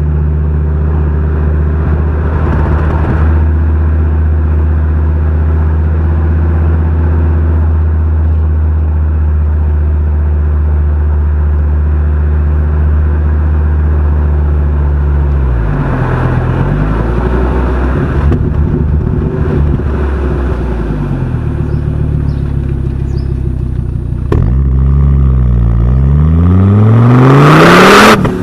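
Fiat Coupé 20V Turbo's turbocharged inline five-cylinder engine and exhaust under way: a steady engine note for about fifteen seconds, then the pitch drops and climbs again a few times. From about three-quarters in it revs up in a long rising pull that breaks off briefly at the very end.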